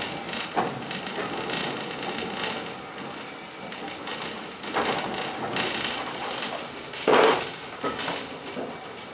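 Railway carriage rattling and clattering as it runs along the track, with a few sharp knocks, the loudest about seven seconds in.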